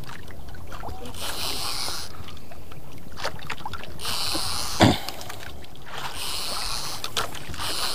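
Water Killer conventional fishing reel being wound in by its crank handle in spurts of about a second each, a hiss-like whir with pauses between. A single knock comes about five seconds in, over water moving against the boat.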